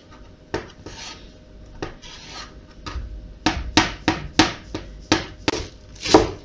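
Kitchen knife chopping on a plastic cutting board: peeled hard-boiled eggs being diced, then green onions being sliced near the end. A few scattered taps at first, then a steady chop about three times a second from about three seconds in.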